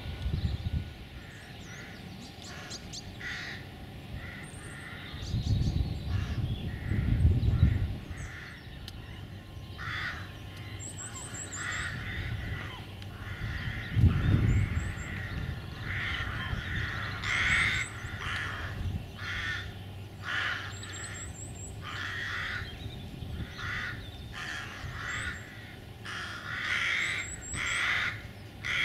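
Crows cawing again and again in short harsh calls, with small birds giving thin high chirps. A few low rumbles come through, the loudest about 14 seconds in.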